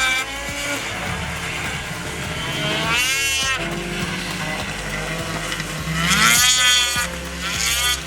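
Motor engine running with a steady low hum, its pitch rising and falling twice, about three seconds in and again about six seconds in.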